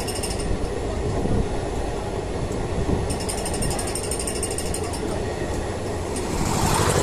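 Passenger train running, heard from inside the coach: a steady rumble from the wheels and running gear with a fast metallic rattle, and a rush of noise that swells near the end.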